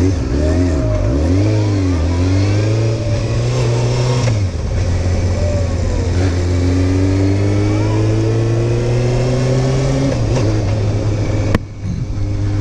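Sport motorcycle engine pulling away from a standstill and accelerating through the gears, heard through a helmet-mounted microphone. The revs rise and fall in the first couple of seconds, dip at a shift about four seconds in, climb steadily for several seconds, then drop again at another shift. A sharp click comes near the end.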